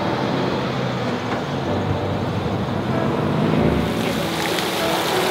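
Steady outdoor city street noise, mostly passing road traffic. A brighter hiss joins about four seconds in.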